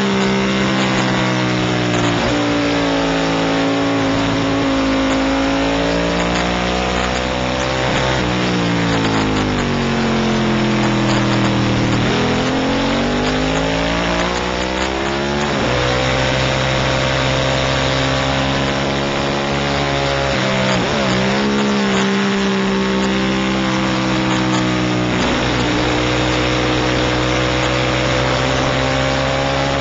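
Racing motorcycle engine heard onboard at racing speed, its pitch climbing and stepping down with upshifts, then falling for several seconds about a third of the way in as it slows for a corner before climbing hard again. A steady rush of wind and road noise sits under the engine.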